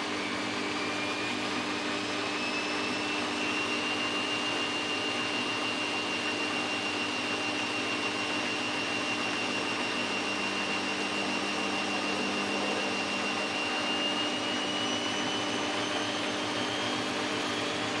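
Samsung WF8804RPA washing machine's drum spinning up in the final spin once the load has balanced. It is a steady motor hum with a whine that rises over the first few seconds and holds level. The whine climbs again near the end as the drum goes up toward 800 rpm.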